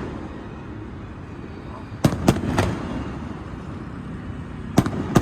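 Aerial fireworks shells bursting: three sharp bangs in quick succession about two seconds in, then two more near the end, over steady background noise.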